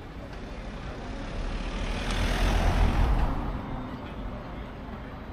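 Motor vehicle driving past close by: a rumbling whoosh that swells to its loudest about two and a half seconds in, then fades back into steady street traffic.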